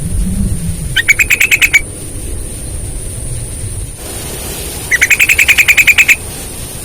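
Yellow-vented bulbul (trucukan) singing two fast rattling trills of rapidly repeated notes, the first short about a second in and the second longer about five seconds in. A steady high hiss runs underneath.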